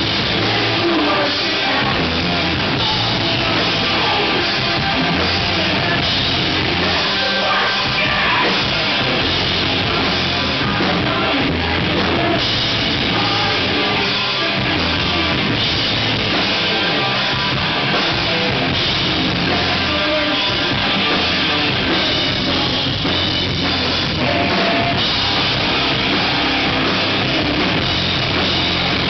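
Live rock band playing loud, with electric guitar, bass guitar and drum kit, and a singer singing into a handheld microphone.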